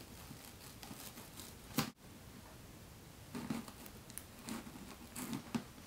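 Faint, scattered taps, scrapes and rustles of a cardboard box being worked by hand as holes are poked into it, with one slightly louder knock about two seconds in.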